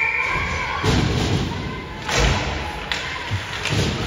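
Ice hockey play in a rink: about four dull thuds as the puck and sticks strike the ice and boards, with the arena's echo. The heaviest hit comes a little past the middle.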